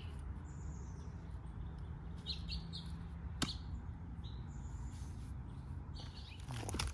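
Songbirds chirping in short high calls every second or two, over a steady low hum, with one sharp click about three and a half seconds in.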